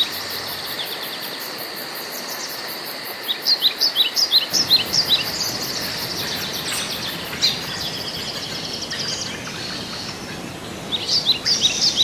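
Wild birds singing in forest undergrowth: quick runs of short, high chirps, loudest about three seconds in and again near the end, over a steady high drone of insects.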